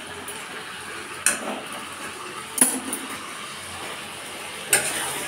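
Metal spatula clinking against a metal kadai while stirring and sautéing chicken and potatoes in spice paste: three sharp clinks, a second or so apart, the middle one the loudest.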